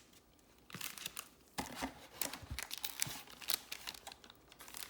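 Plastic packaging of a trading-card mega box being torn open and crinkled by hand: irregular crackles and rustles that start about a second in.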